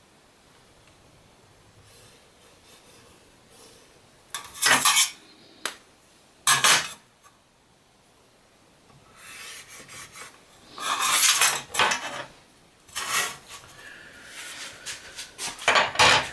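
Metal measuring tools clinking and scraping on a sheet of aluminum as lines are marked out: five or so short bursts of clatter with quiet pauses between.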